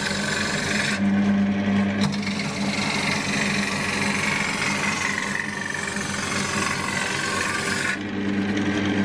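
Wood lathe motor humming while a turning tool shaves the spinning ash bowl blank: a steady rasping hiss of the cut over the motor's hum. These are light smoothing cuts to take a bumpy surface down by a millimetre or two. The cutting noise drops away for about a second, once about a second in and again near the end, leaving the motor hum.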